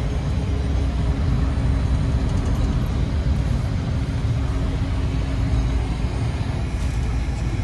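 Cabin noise of a small business jet rolling along the runway: the jet engines and airflow make a loud, steady low rumble with a constant hum through it.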